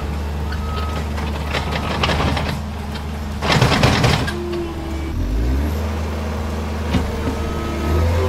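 Case SR175 skid steer loader working: its diesel engine runs steadily while its reversing alarm beeps briefly near the start and again near the end. About three and a half seconds in, a loud rush of soil and turf pours from the raised bucket, and the engine note swings shortly after.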